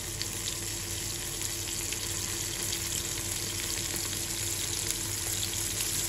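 Whole flour-dredged blue whiting frying in a pan on a gas stove: a steady sizzle with faint small crackles, over a faint steady hum.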